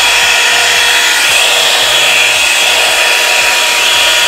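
Hot air brush (a one-step hair dryer brush) running steadily on its low setting: a loud, even rush of air with a steady high whine from the motor.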